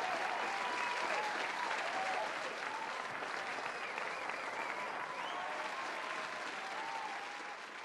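Audience applauding and cheering, dense clapping with scattered voices rising and falling over it; it begins to fade near the end.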